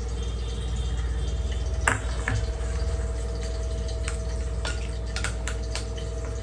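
Small spoon clinking and scraping against a stainless steel bowl as spice paste is mixed, with a sharp knock about two seconds in and a run of quick clinks later, over a steady low electrical hum.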